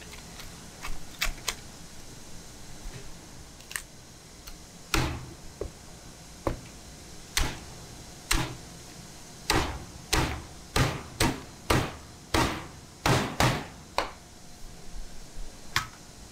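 Cleaver chopping through a fish head on a thick wooden chopping block. A few light knife clicks come first, then heavy chops from about five seconds in, with a quick run of blows at about two a second in the middle, splitting the head into pieces.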